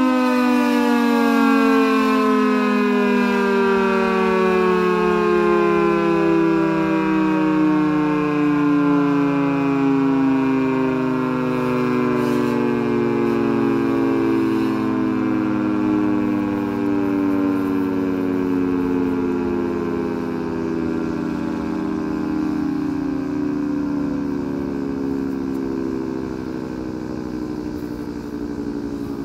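Federal Signal 2T22B dual-tone electromechanical warning siren winding down: its chord slides slowly and steadily lower in pitch and gradually fades as the rotors coast down after power is cut at the end of its test cycle.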